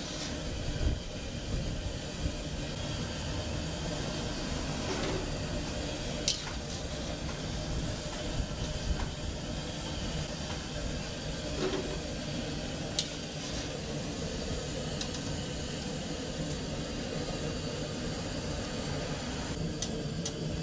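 Steady hiss of a gas burner with oil frying in an iron kadai, broken by a few sharp clinks.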